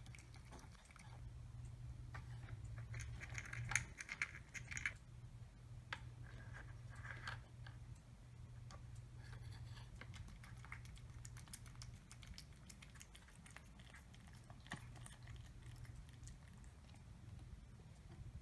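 A cat eating dry kibble from a plastic Nina Ottosson Rainy Day food puzzle: faint chewing and crunching with scattered light clicks of plastic pieces being nudged, busiest a few seconds in, over a steady low hum.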